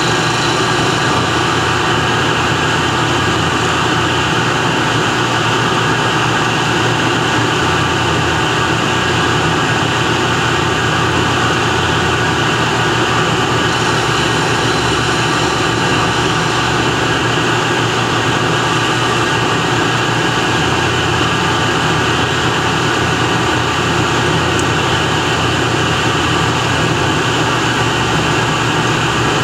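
A metalworking machine tool running steadily while a small press-fit spacer is machined to size, with a constant hum and rumble that stays level throughout.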